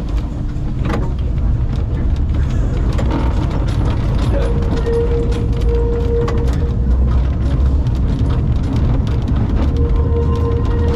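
1912 Boon & Co. California combination tram running along its rails: a steady low rumble with frequent clicks and rattles from the wheels and body. A steady whine joins about four seconds in and again near the end.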